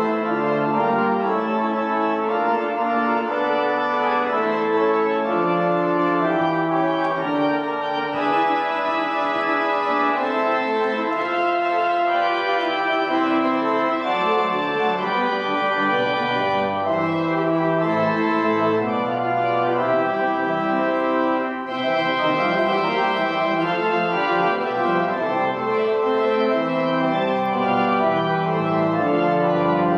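Organ music: a slow piece of held chords with notes moving over them, played without a break.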